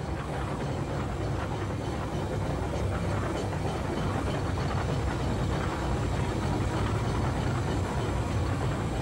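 1912 Buffalo Pitts steam traction engine driving past: a steady mechanical rumble and clatter from its engine and steel-rimmed wheels on the road, growing louder over the first few seconds as it draws level.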